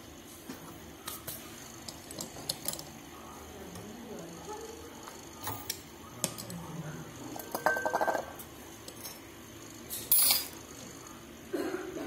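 Small metallic clicks and clinks of brass refrigerant-charging fittings and hoses being handled, with a rattling clatter about eight seconds in and one short, sharp louder burst about ten seconds in.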